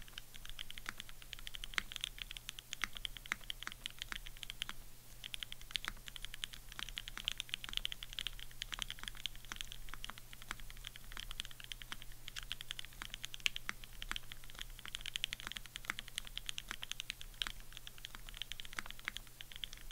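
Keycult No. 2/65 custom 65% mechanical keyboard with lubed and filmed H1 switches, Durock stabilizers and GMK keycaps, typed on steadily: a continuous stream of keystrokes with a short pause about five seconds in.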